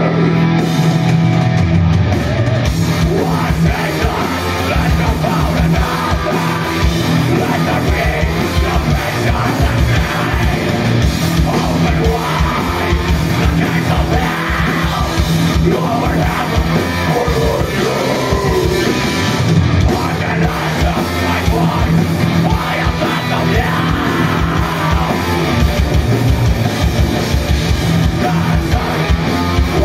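A heavy metal band playing live: distorted electric guitars and bass over rapid drumming, with yelled vocals.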